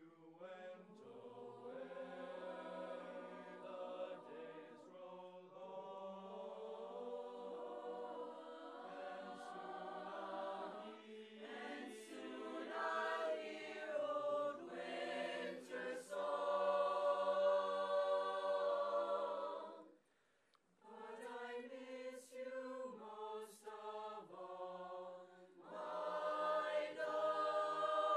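Mixed-voice high-school madrigal choir singing together. The singing stops for about a second roughly two-thirds of the way through, then comes back in.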